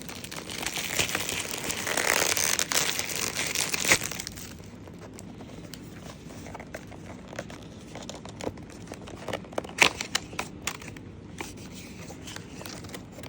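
Plastic wrapping on a fragrance box being torn off and crumpled, a dense crinkling for about four seconds. Then scattered clicks and taps as the cardboard box is handled and opened, the sharpest about ten seconds in.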